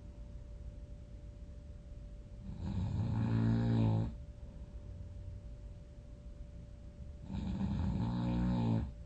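A person snoring loudly in deep sleep: two long snores about five seconds apart, each lasting about a second and a half, with quiet breathing between them.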